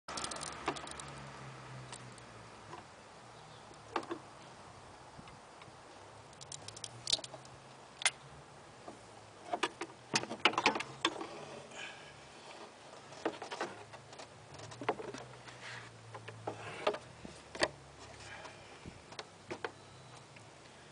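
Irregular light clicks and knocks of hands working around the engine's cooling fan and fan clutch, clustered in bursts with quiet gaps between them.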